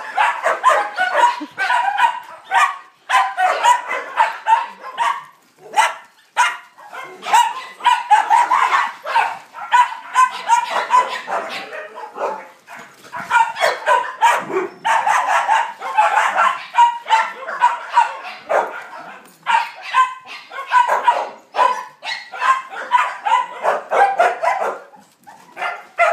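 Two Siberian huskies vocalizing as they play-fight: a near-continuous string of short, pitched barks and yips, with a few brief lulls.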